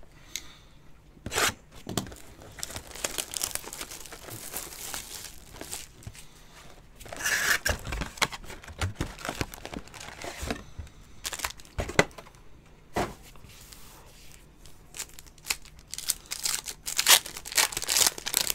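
Sealed cardboard box of football trading cards being torn open, with crinkling wrapping and sharp cardboard rips. Near the end a foil card pack is ripped open and crinkles loudly.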